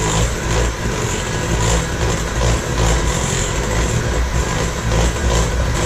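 Electric hand mixer running steadily, its beaters whisking cake batter in a glass bowl.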